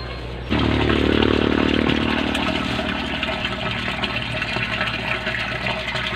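Water gushing into a blue plastic drum, starting abruptly about half a second in and running steadily, over a steady low hum.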